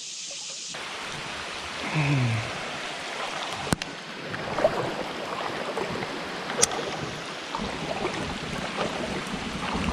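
Steady rush of flowing creek water, with a couple of sharp clicks. From about eight seconds in, wind buffets the microphone with a low rumble.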